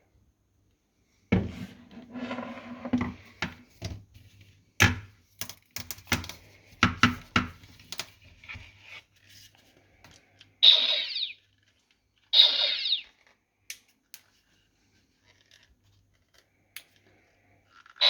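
Handling noise from a fiberglass Cylon prop pistol: a run of irregular clicks, knocks and scrapes, then two short electronic sound effects from the pistol, about a second and a half apart, and a few faint clicks.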